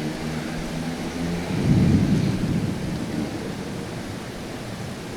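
Steady rain with a rumble of thunder that swells to a loud peak about a second and a half in, then slowly dies away.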